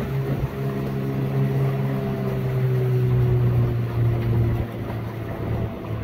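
Small Suzuki outboard motor on a tin boat running at steady cruising speed, a low even hum over wind and water rush. It gets a little quieter about three quarters of the way through.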